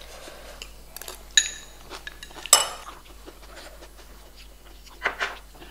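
Metal spoons clinking against ceramic bowls during a meal: two sharp ringing clinks about a second apart, the second the loudest, with lighter taps between.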